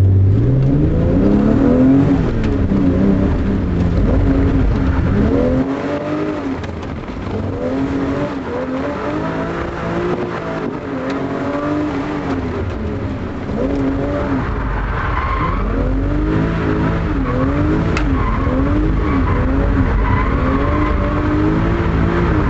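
BMW M5 engine heard from inside the cabin, the revs climbing and dropping again and again as the driver works the throttle through drifts.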